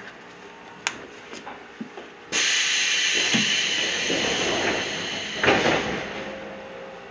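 Compressed air on an Iyotetsu 3000-series commuter train hissing loudly for about three seconds after a couple of light clicks, starting suddenly, with a loud thump near the end as it dies away.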